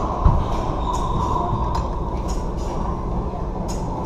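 Racquetball rally sounds in an enclosed, echoing court: one sharp smack of the ball being struck or hitting a wall just after the start, then a few light ticks and a brief high sneaker squeak on the hardwood floor, over a steady low rumble.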